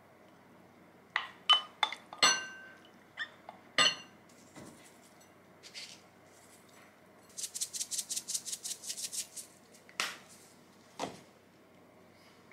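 A wooden spoon knocking and scraping against a glass container and a ceramic bowl as a topping is served out, giving a handful of sharp, ringing clinks. Later comes a rapid run of high clicks, about eight a second for two seconds, then two more knocks.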